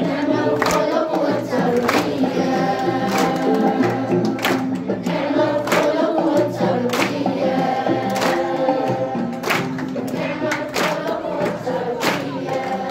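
A group of voices singing together in chorus over music, with a sharp beat about every second and a quarter.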